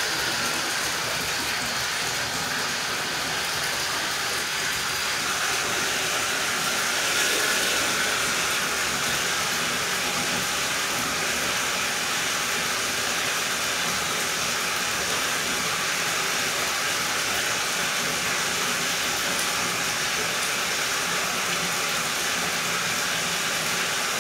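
Steady, even rushing noise with no pitch or rhythm, holding the same level throughout.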